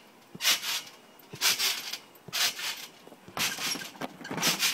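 Bouncing on a trampoline: a short rushing noise about once a second with each bounce.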